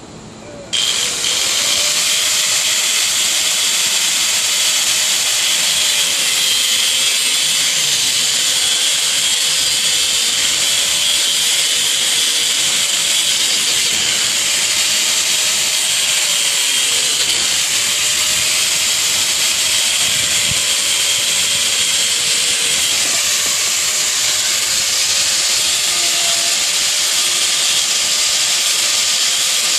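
Angle grinder with a metal cutoff wheel starts about a second in and cuts through 1.5-inch schedule 40 PVC pipe: a loud, steady high grinding noise, the motor's pitch wavering and dipping as the wheel bears into the plastic.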